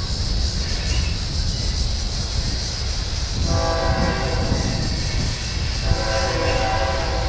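Freight train cars rumbling steadily across a railroad bridge. A diesel locomotive's multi-tone air horn sounds two blasts of about a second each, the first about three and a half seconds in and the second about six seconds in.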